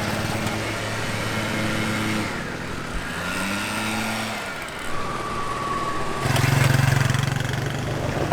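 Street traffic: motor vehicle engines running and shifting in pitch. A louder, lower engine comes in about six seconds in.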